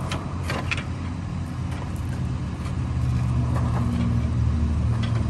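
An engine running steadily, growing louder about three seconds in, with a few sharp knocks in the first second.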